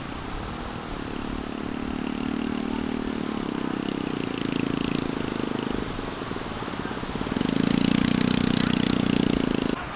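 A small engine running steadily, louder for a stretch near the end and then cutting off abruptly.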